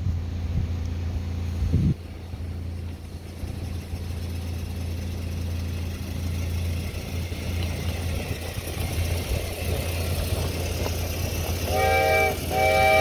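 Compressed-air fireless locomotive on 7¼-inch gauge track running toward the listener, its air exhaust growing louder as it nears over a steady low hum. Near the end its chime whistle sounds two short toots.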